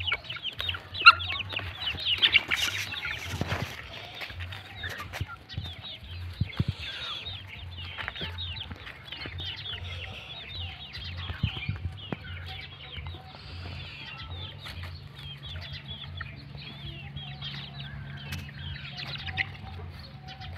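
A flock of young chickens peeping and clucking, many short high calls overlapping, densest and loudest in the first few seconds. A few sharp knocks and a low steady hum lie underneath.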